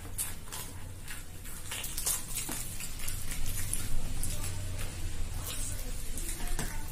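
Eating sounds: luchi (puffed fried bread) torn by hand and chewed, heard as scattered small crackles and clicks over a low steady hum.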